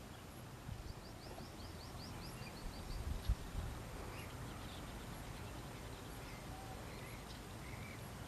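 Wild birds calling over steady outdoor background noise. About a second in comes a quick run of about a dozen high chirps, falling slightly in pitch. Short scattered calls follow, with a brief low bump about three seconds in.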